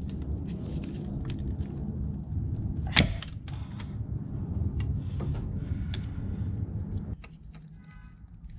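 Hand work among engine-bay wiring: plastic connectors, clips and harnesses clicking and rattling as they are unplugged and moved aside, with one sharp snap about three seconds in. A low steady rumble underneath stops shortly before the end, followed by a brief squeak.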